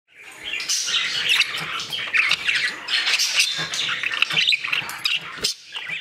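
Budgerigar chattering, a busy run of quick high chirps and squawks.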